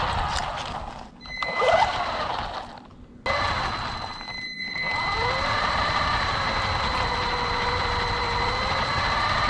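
RC car's motor whining as it drives, the pitch rising and falling with the throttle and a steady high whine over it, with tyre rumble on rough asphalt. The sound drops away briefly about a second in and again near three seconds, then runs on steadily.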